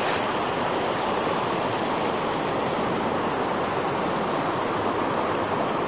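A steady rushing noise, even and unbroken throughout.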